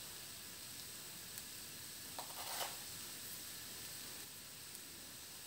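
Potatoes and onion frying in a pan on a gas stove: a faint, steady sizzle, with a couple of light taps a little over two seconds in.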